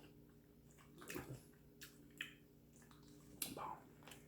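Quiet, wet mouth clicks and smacks of someone chewing seafood, a handful of them scattered over a faint steady hum.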